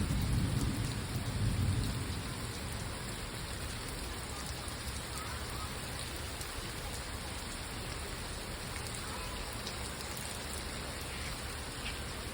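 Heavy rain falling in a steady, even hiss, with a low rumble over the first couple of seconds.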